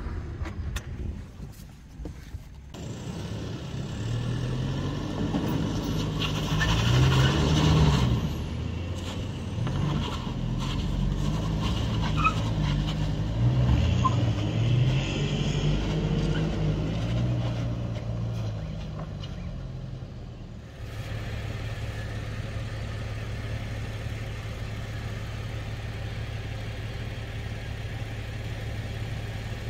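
Off-road 4x4 vehicle's engine working under load, its revs rising and falling repeatedly, with a few knocks along the way. About two-thirds of the way through it changes suddenly to a steady, even engine drone.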